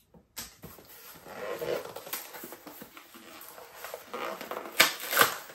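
Paper and cardboard packaging rustling and crackling as a parcel is opened by hand, with two sharp crackles near the end.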